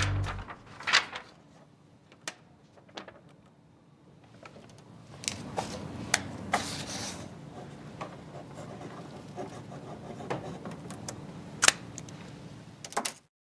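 Printed paper sheets being handled at a printer: rustling and leafing with scattered sharp clicks. A low, steady background noise comes up about five seconds in.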